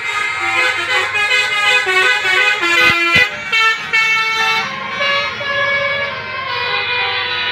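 Multi-tone Basuri 'telolet' bus air horn playing a tune of stepping notes, several tones sounding together, with two short clicks about three seconds in.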